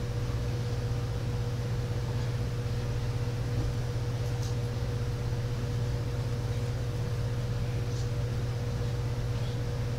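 Steady low hum of room noise: a constant low drone with a fainter steady tone above it and a light hiss. There are two faint ticks, about four and a half and eight seconds in.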